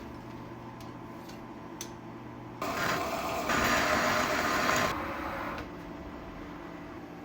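Metal lathe running with a low hum and faint ticking, then a hissing, whining noise about two and a half seconds in that grows louder for a second and a half and falls back to the hum.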